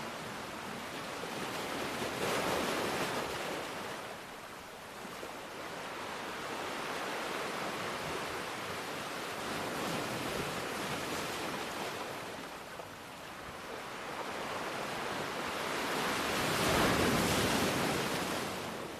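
Ocean waves washing in and out on a shore, a steady surf that swells and recedes slowly, with the largest swell near the end.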